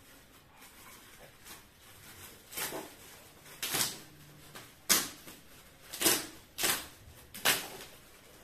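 Shiny metallic gift wrap crinkling and tearing as it is pulled off a present, in about six short, loud rustles roughly a second apart, starting a couple of seconds in.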